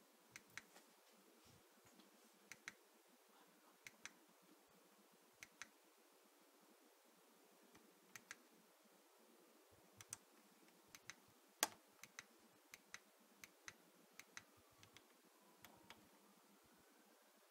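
Front-panel navigation buttons of a Popcorn Hour C200 media player clicking as they are pressed one by one in a slow, irregular series, many clicks coming in close pairs. One click about two-thirds of the way through is the loudest.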